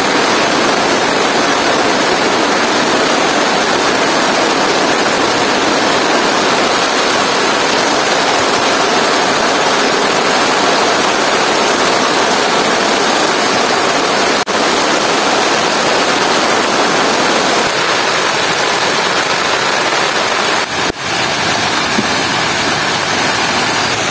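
Heavy rain pouring down in a dense, steady hiss that dips only briefly twice.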